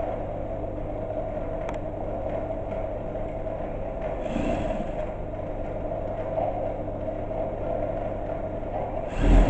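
Sewing machine running steadily with a constant hum as the edge of a pocket bag is stitched, with a brief loud thump near the end.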